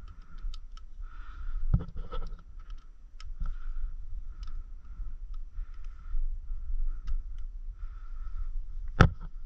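Light metallic clicks and scraping from a bike multi-tool's hex key working the stem bolts to tighten a loose mountain-bike handlebar, with a louder sharp click near the end.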